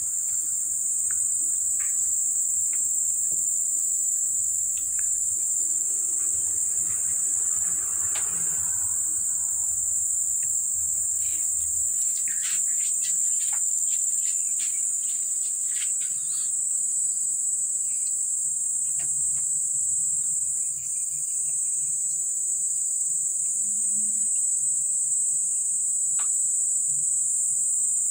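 A steady, high-pitched chorus of insects, most likely crickets, keeps up without a break. A few faint clicks and taps come through it around the middle.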